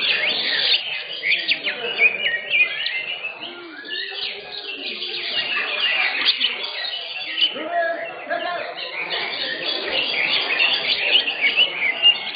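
Many caged greater green leafbirds (cucak hijau) singing at once, a dense, unbroken stream of rapid chirps and whistles, with a crowd's voices underneath.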